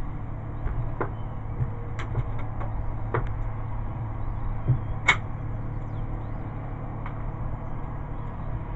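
A few light clicks and knocks as a rifle is handled in a bench rest, the sharpest about five seconds in, over a steady low rumble.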